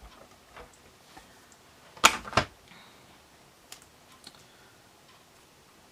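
Two sharp clicks close together about two seconds in, among a few faint taps, as paper craft pieces are peeled off and handled on a cutting mat.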